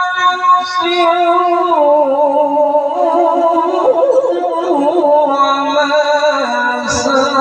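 Quran recitation: a qari's solo voice holding long, melismatic notes that waver up and down in pitch, unbroken by pauses.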